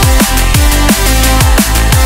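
Background electronic music with a steady, heavy bass beat: deep bass hits that drop in pitch, about every two-thirds of a second, under sustained synth notes.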